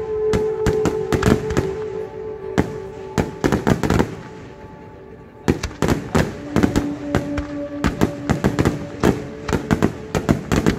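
Fireworks display: aerial shells bursting in rapid, overlapping bangs and crackles. There is a lull of about a second and a half near the middle, then the volleys resume.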